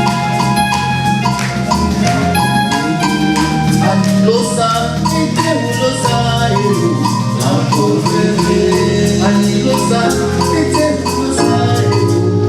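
Music with a steady beat: short, repeating pitched percussion notes over drums and other percussion.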